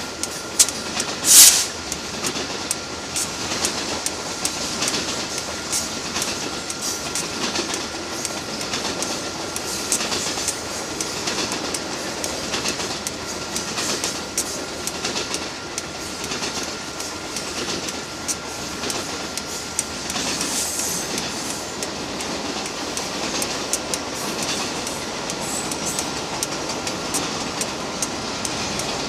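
Cars of a Canadian Pacific freight train rolling steadily past at trackside, with the wheels clicking over rail joints and a faint steady whine under the rumble. A brief, loud, sharp noise stands out about a second and a half in.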